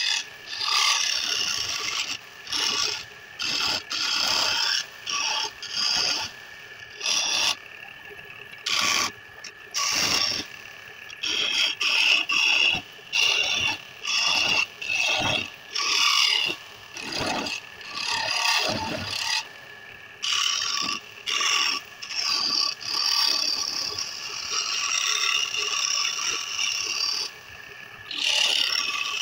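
A hand turning tool cutting a spinning wooden spindle on a belt-driven wood lathe as a bead and groove are shaped. Rough, hissing bursts of cutting come and go every second or so as the tool is pressed in and eased off, over a thin steady whine from the running lathe.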